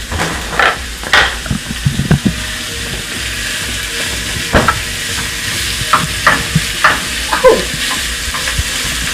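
Seasoned lamb sizzling as it fries in a hot pan, with a steady hiss and repeated sharp scrapes and knocks of a utensil stirring the meat against the pan.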